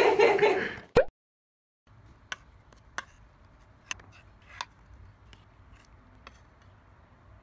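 Voices for the first second, then, after a brief silence, a metal spoon stirring yogurt in a ceramic bowl, clinking against the bowl about six times as light, separate clicks.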